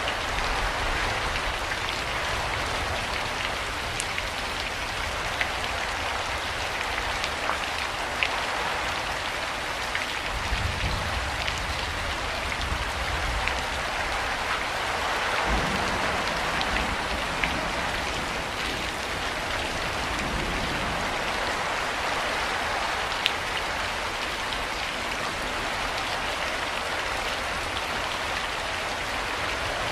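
Steady rain falling, an even hiss with scattered sharper drop ticks on a hard surface.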